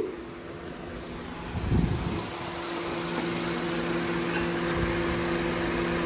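Car engine idling with a steady hum that grows slightly louder, and a low thump about one and a half seconds in.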